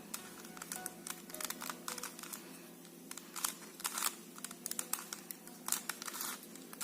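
Plastic Mastermorphix twisty puzzle being turned by hand: quiet, irregular clicking and rattling of its layers.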